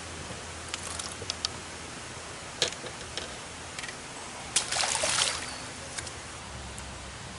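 A short splash at the water's surface about four and a half seconds in, preceded by a few light clicks and knocks, over a steady hiss.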